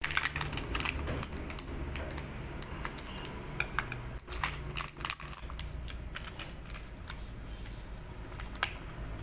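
Irregular light clicks and taps of small objects being picked up and handled on a hard tabletop, over a low steady hum.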